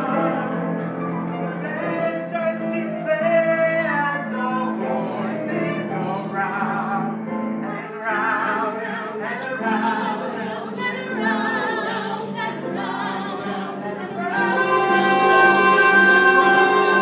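Live musical-theatre song performed by a small cast of singers with accompaniment. About 14 seconds in it swells into a louder passage of voices holding notes together.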